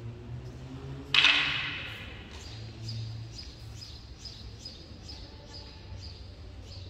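Wooden practice weapons clack together once, sharply, about a second in, and the sound rings on briefly in the hall.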